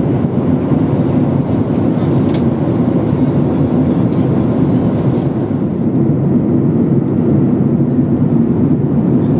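Steady cabin noise of a Boeing 737 airliner: a constant low rumble of engines and air through the cabin.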